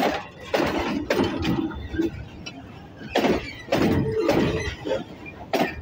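Steel wheels of slowly rolling freight wagons on the rail: a series of irregular clanks and knocks as wheels pass the joints, with brief wheel squeal, the longest about four seconds in.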